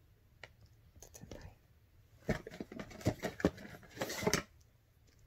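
Small plastic paint bottles and a cardboard paint box being handled on a couch cushion: a scatter of light knocks and rustles, with a short scraping rustle about four seconds in.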